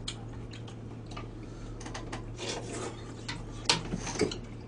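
Chopsticks clicking against bowls and plates while people eat: scattered light clicks, a few sharper ones near the end, over a steady low electrical hum.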